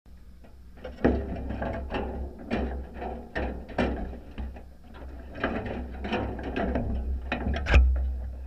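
Irregular clicks, knocks and rattles of a wire-mesh crab pot being handled, its metal frame and mesh knocking, over a low rumble. The loudest knock comes near the end as the pot is moved.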